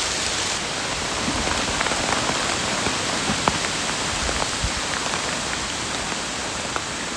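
Heavy rain falling steadily, a dense hiss with many separate drops ticking sharply close by.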